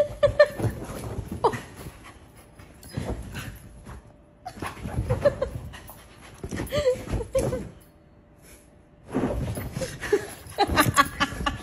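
A husky making short whining vocalizations several times, with rustling and movement noise in between.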